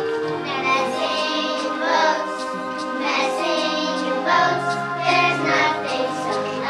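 A group of children singing together with instrumental accompaniment, the sustained low accompaniment notes changing every second or so.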